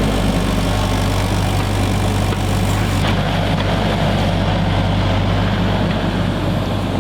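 The engine of a digging machine running steadily while the ditch is dug, a constant low hum under a broad mechanical noise.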